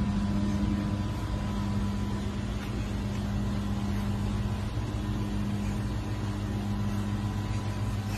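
Steady low mechanical hum over a faint even hiss, with a faint high tone that fades about a second in.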